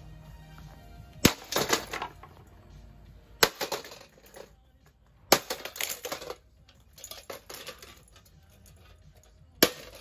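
Four heavy blows from a long-handled hammer on a Harbor Breeze ceiling fan motor, each a sharp crack followed by a clattering rattle as the motor and its loose pieces tumble over rock.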